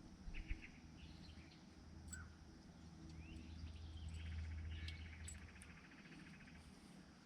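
Faint birdsong: scattered chirps and a rapid trill that runs about four to six seconds in, over a low steady hum.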